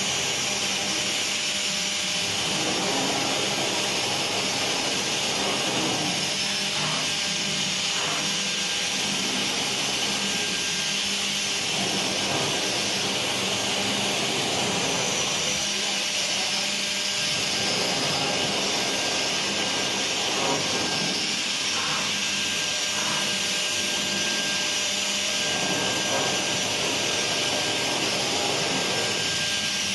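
Two-head CNC router running: the spindles give a steady high whine over a loud hiss, while the cutting noise in the middle range swells and eases every couple of seconds as the bits work the wood.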